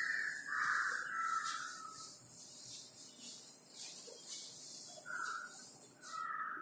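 Felt blackboard duster wiping chalk off a chalkboard in quick repeated strokes, making a scratchy swishing sound. A few short chirps sound over it, the loudest in the first two seconds.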